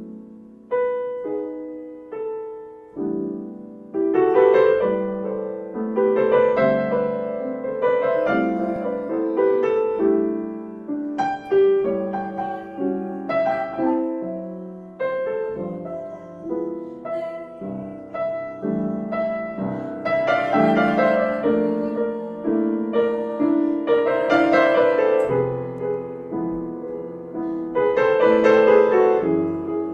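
Grand piano played solo: slow chords and melody, sparse and quieter for the first few seconds, then fuller and louder from about four seconds in.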